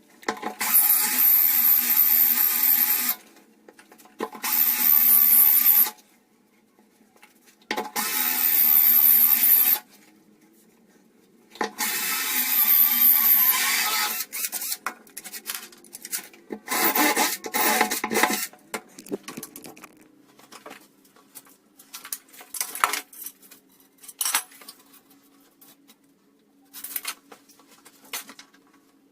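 Power drill boring into ceramic tile with a diamond hole saw, run in five bursts of two to three seconds with a steady whine and grinding. After that come scattered clicks and knocks.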